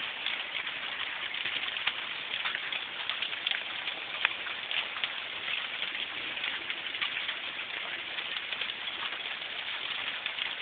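Hail and rain falling, a steady dense patter of many small hits on surfaces.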